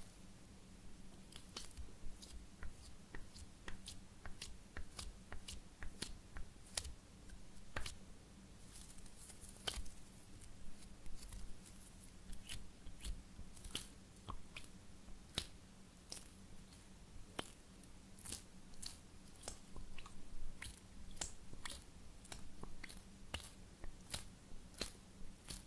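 A soft foam squishy toy being squeezed and pressed by fingers, giving irregular small sticky crackles and clicks.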